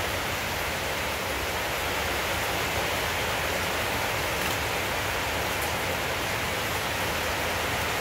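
Steady, even rushing noise with no change in level, with a few faint clicks in the second half.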